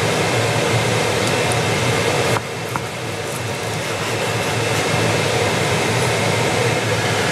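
A fan running steadily, with a low hum under it. The noise drops suddenly about two and a half seconds in and creeps back up.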